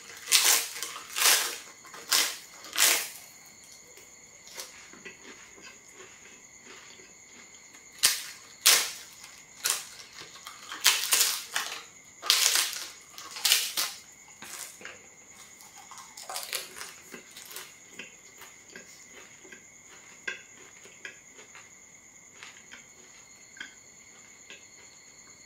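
Thin, crisp flatbread crunching as it is bitten and chewed close to the microphone: loud crunches come in clusters, with quieter chewing crackles between them that thin out toward the end.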